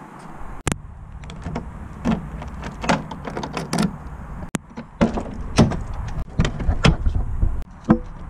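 Clicks and knocks of a car door being handled and opened, over a low steady rumble, with two abrupt breaks in the sound.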